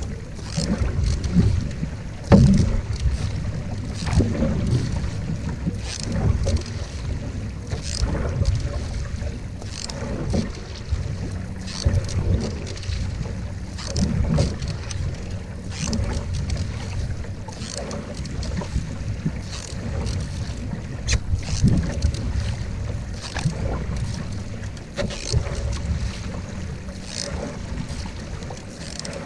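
Canoe paddle strokes, a single blade pulling through the water about every couple of seconds, with water washing along the hull. Wind buffets the microphone.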